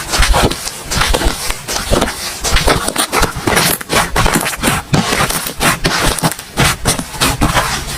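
Slime being squished and poked by hand, giving a quick, uneven run of wet crackling pops and clicks.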